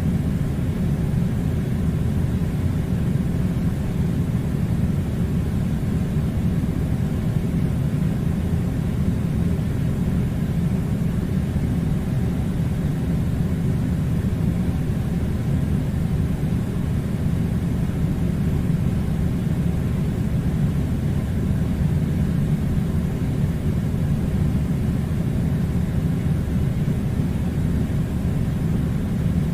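Air conditioner running with a steady, even low rumble that does not change.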